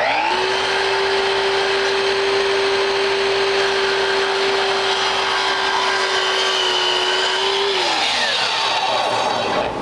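Sliding miter saw spinning up and running at a steady pitch as its blade comes down through crown molding, a first trim cut just wide of the pencil mark. The motor is released and the blade winds down about eight seconds in, while the rushing noise of a dust extractor on the saw's hose runs on a little longer.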